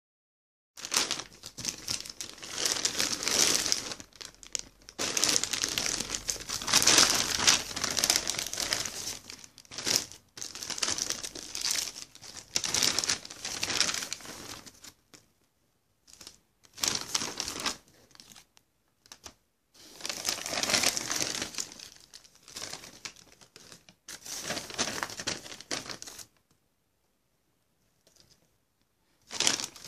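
Packaging crinkling and rustling as it is handled and unwrapped, in bursts of a few seconds with short pauses, and a quiet stretch near the end.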